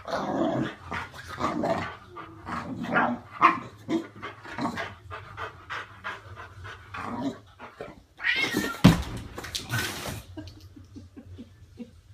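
A boxer dog and a cat squaring off, with a run of short growling and yowling calls, then a loud, harsh burst about eight seconds in, the loudest moment.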